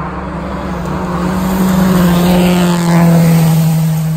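Rally car engine running hard as the car passes, growing louder to a peak about two to three seconds in, then fading with its pitch dropping a little.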